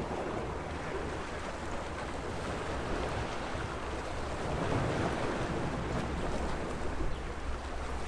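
Small sea waves washing against the shore in a steady wash of noise, swelling a little about five seconds in, with a steady low rumble underneath.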